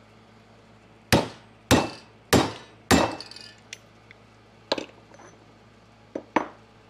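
Hammer striking a seal driver from a wheel bearing kit four times, about half a second apart, to drive in the piston and dust boot of a brake caliper. A few lighter metallic clinks follow as the driver and its disc are lifted off and set down.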